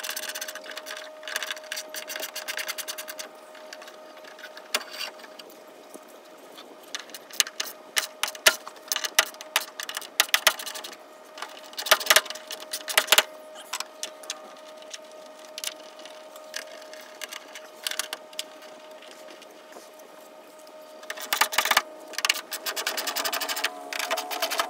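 Bursts of rapid mechanical clicking and clattering from fasteners and parts being worked loose on the front of a Dodge Ram pickup, with a few sharper knocks in the middle, over a faint steady hum.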